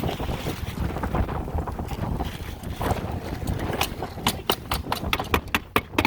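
Wind buffeting the microphone with a low rumble. About two-thirds of the way through, a quick run of sharp knocks starts, about four or five a second.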